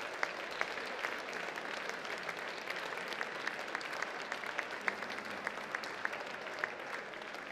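Audience applauding steadily, many hands clapping at once, with single sharper claps standing out.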